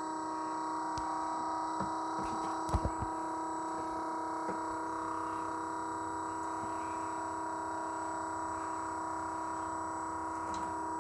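Battery-powered oil transfer pump running with a steady whine while it pumps oil out of a bucket. A few short knocks come about three seconds in.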